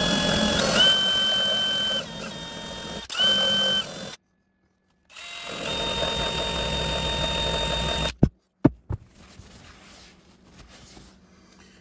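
Drill spinning a Dremel grinding stone against a crosslinked polyethylene fuel tank, grinding a V around a puncture hole. The motor whines steadily in several runs with a short break, stops about 8 seconds in, and is followed by a few knocks.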